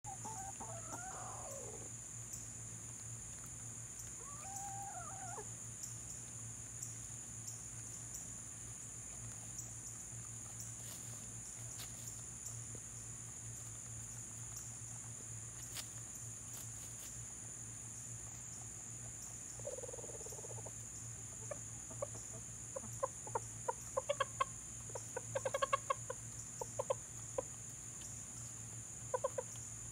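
A flock of chickens clucking while feeding. There are a few drawn-out calls in the first seconds and again about twenty seconds in, then a run of quick, short clucks over the last eight seconds, all over a steady high-pitched hum.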